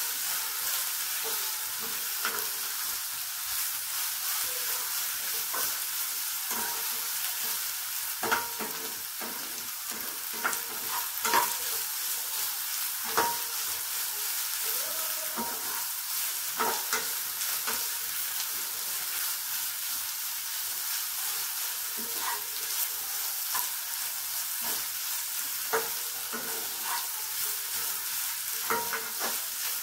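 Shredded vegetables stir-frying in a nonstick wok: a steady sizzle, with a spatula scraping and knocking against the pan at irregular moments as it tosses the cabbage and carrot.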